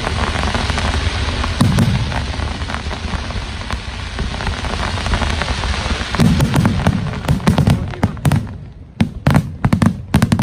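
Fireworks display: a dense crackling from many shells bursting at once, sounding like heavy rain, with low booms underneath. Near the end it breaks up into separate sharp cracks and pops.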